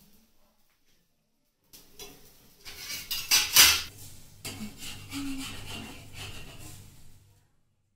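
A metal utensil scraping and clattering against a pan on a gas stove while a chilra cooks. It starts about two seconds in, is loudest a little after the middle, and dies away near the end.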